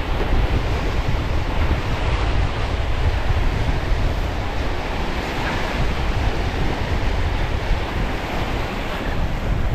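Strong wind buffeting the microphone in a steady low rumble, over a continuous wash of waves.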